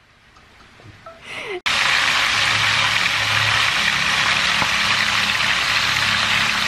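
Chicken pieces sizzling as they fry in lard in a pot: a steady hiss that cuts in suddenly about a second and a half in.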